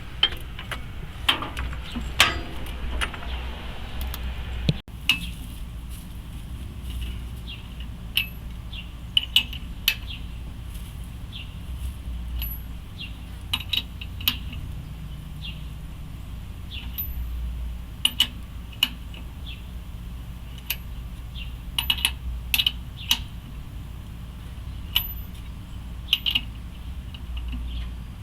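Scattered light metallic clinks and taps of tools and parts being handled, at irregular intervals.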